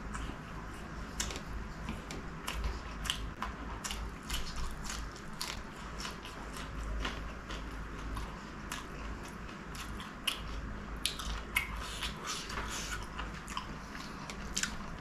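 Close-miked chewing of a raw green chilli: repeated, irregular crisp crunches.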